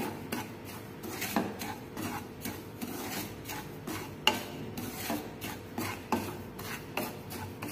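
Wooden spoon stirring and scraping dry semolina around a frying pan as it roasts on a low flame: a gritty rasp in repeated strokes, a few per second, with an occasional sharper tap of the spoon on the pan.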